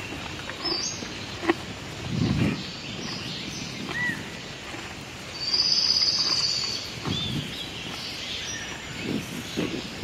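Small birds chirping, with one loud high buzzing trill a little past halfway, over a few short low bursts of sound from donkeys feeding on hay.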